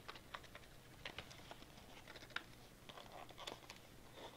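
Faint, irregular clicks and light rustling of cardboard and plastic packaging being handled.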